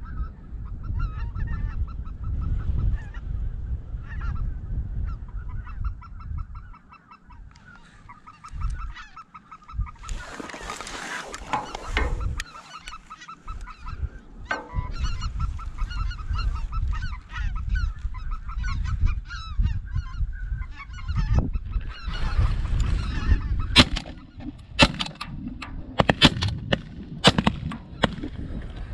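Geese honking: many rapid, overlapping honks, with a low rumble throughout. A series of sharp cracks comes near the end.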